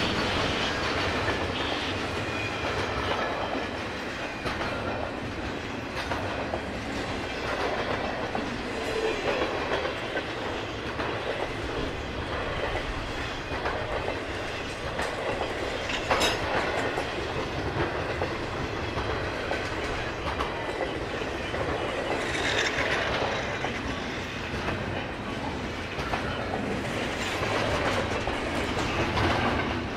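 Double-stack intermodal freight train's well cars rolling past: steady rumble of steel wheels on rail with clickety-clack over the rail joints, and one sharp clank a little past halfway.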